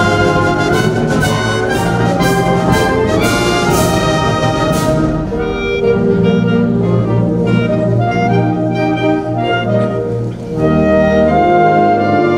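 Band music led by brass, with regular percussion hits in the first few seconds. It moves into held brass and woodwind chords, with a short drop and a new phrase about ten seconds in.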